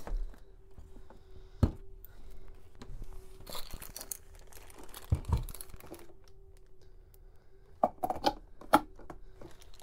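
Plastic packaging crinkling and rustling as wrapped hair-dryer parts are handled, with scattered knocks and a few sharp clicks near the end as a part is fitted onto the dryer body.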